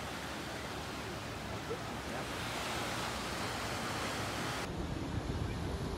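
Small sea waves washing onto a sandy beach: a steady hiss of surf that swells midway through. Wind rumbles on the microphone in the last second or so.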